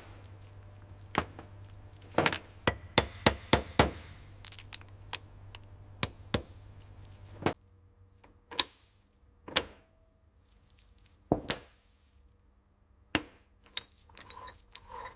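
Irregular sharp metallic clanks and taps of tools and metal parts knocking together, quick and close together at first, then sparser. A low steady hum runs underneath and stops about halfway through.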